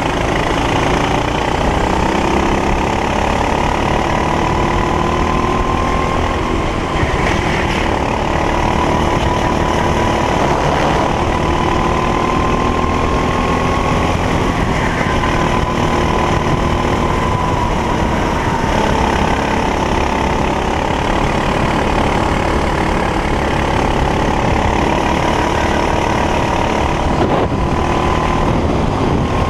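Racing kart engine running hard at high revs, its pitch rising and falling slowly through the corners and straights of a lap.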